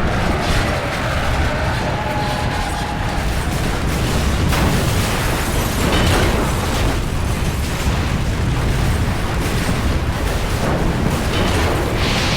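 Loud, continuous deep rumbling with booms, like an explosion sound effect, lasting the whole stretch.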